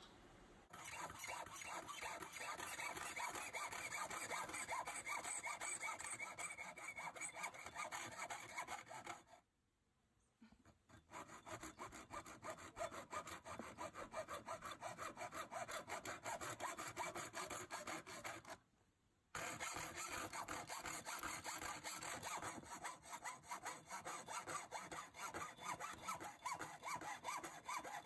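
Saw cutting through an aluminium window-screen frame rail in quick back-and-forth strokes. The sawing stops abruptly twice, for about a second and a half around nine seconds in and briefly around nineteen seconds in, then carries on.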